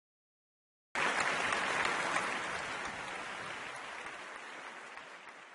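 Applause from a crowd, starting abruptly about a second in out of silence and fading away gradually.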